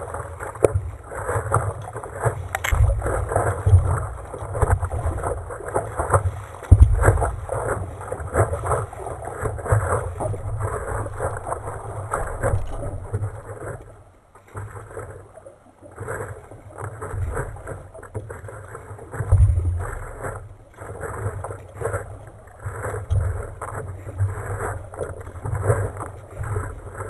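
Water splashing and sloshing against the hull of a small paddled craft as a double-bladed paddle dips on alternate sides, with wind buffeting the microphone. The paddling pauses briefly about halfway through, then picks up again.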